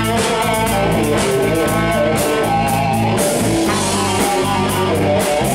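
A live rock band playing: electric guitar over drums with a steady cymbal beat.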